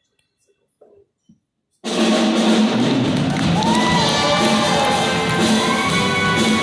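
A hushed pause with a couple of faint knocks, then about two seconds in a show choir and live band start loudly together: massed voices over drums and bass, carrying on at full level.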